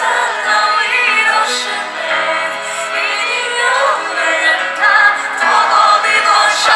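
Female vocalist singing a Mandarin pop ballad over instrumental accompaniment, the sung line gliding between held notes, with a few sharp percussion hits.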